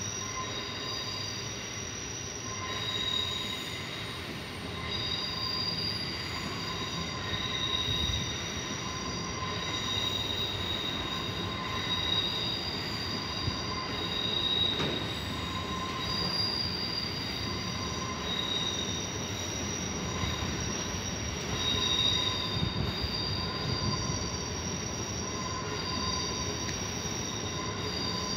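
Train wheels squealing on the rails as a passenger train moves through the station tracks: several high-pitched tones that swell and fade in turn, over a low rumble.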